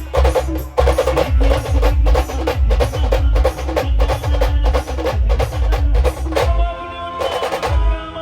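Live band music: fast, dense drumming with heavy bass drum beats under a sustained melodic line. About six and a half seconds in, the drumming drops away briefly and the melody stands out before the beat returns.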